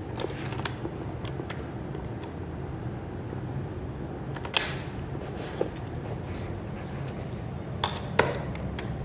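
Scattered light clicks and metal clinks of a spanner and bolt hardware while a chair's rear leg is fitted, with one brief ringing ping about halfway and two sharper clinks near the end.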